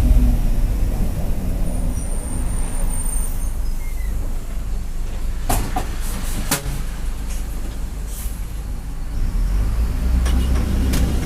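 Mercedes-Benz OF-1721 BlueTec 5 city bus running, heard on board: a steady low drone with the growl of its noisy differential. A few sharp rattles come about halfway through and again near the end.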